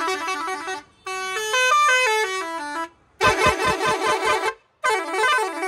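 Source 021P Sultan six-pipe musical air pressure horn on a bus, sounding a series of its tune patterns. First a rapid two-note trill, then a run of notes stepping up the scale and back down, then a fast pulsing blast, and last a warbling wail that swoops up and down.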